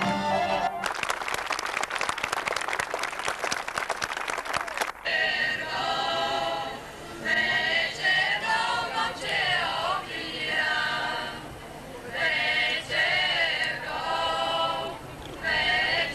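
Audience clapping for about four seconds, stopping abruptly; then a women's choir sings in short phrases with brief pauses between them.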